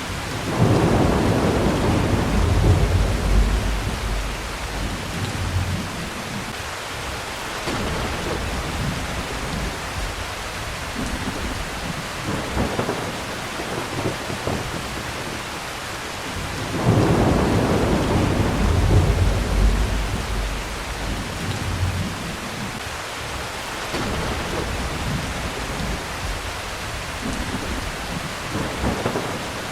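Steady heavy rain with two rolls of thunder, one just after the start and another a little past the middle, each rumbling low for several seconds before fading back into the rain.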